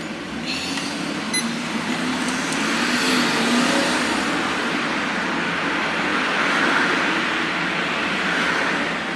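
Hot air rework station blowing a steady rushing hiss over the logic board, heating the flux-covered pads. A few light clicks come in the first second or so.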